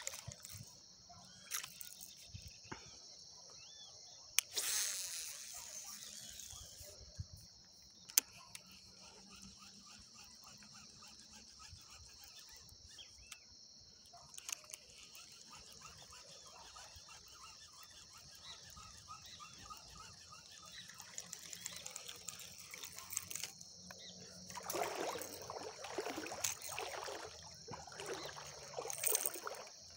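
A steady high-pitched insect chorus, with a few sharp clicks scattered through it. Near the end come several seconds of louder irregular handling noise as a fishing lure is brought in out of the water.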